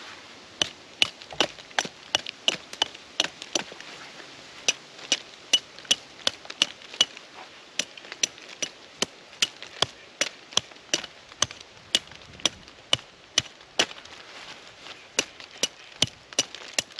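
Knife carving a freshly made persimmon-wood mallet, cutting away bark and wood in quick strokes. Each stroke is a sharp snap, and they come steadily at about two or three a second.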